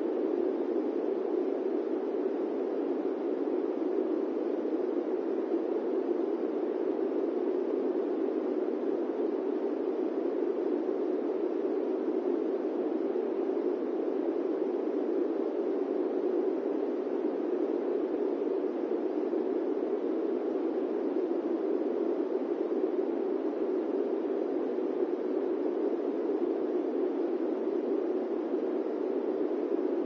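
Fan running with a steady, dull whoosh that never changes, weighted low with little hiss and no hum, beat or tone.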